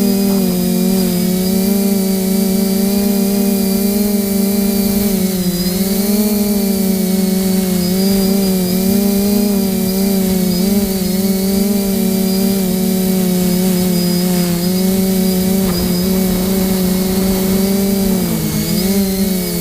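Steady whine of a small motor, with its pitch dipping briefly twice.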